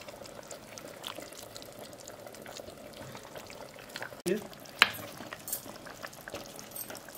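Serving spoon scraping and clinking against a pot and bowl as curry is dished out, a series of light scrapes and clicks with one sharper clink about five seconds in.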